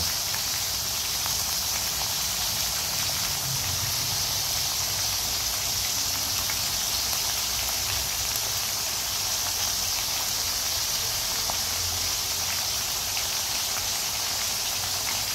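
Pork cutlets coated in minced lemongrass shallow-frying in hot oil in a metal pan, giving a steady, even sizzle.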